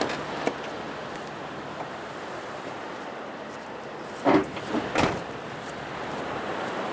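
Vehicle door being shut: two loud knocks about four and five seconds in, the second a sharp slam, over the steady wash of surf.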